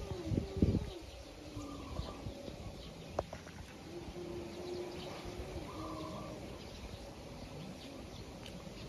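Low, drawn-out cooing bird calls, repeated several times, with a couple of dull thumps about half a second in.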